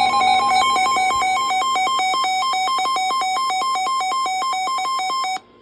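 Synthesized electronic beeping: a quick sequence of buzzy tones switching back and forth between two pitches a few times a second over a steady lower tone. It cuts off abruptly near the end.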